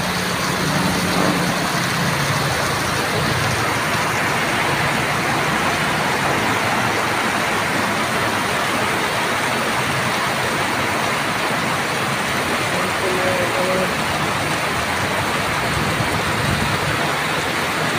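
Heavy tropical rain pouring onto a flooded street: a loud, steady hiss of rainfall and running water. A passing motor vehicle's engine hums under it in the first couple of seconds.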